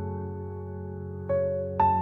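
Soft background keyboard music: held notes fading slowly, with new notes struck about a second and a half in and again near the end.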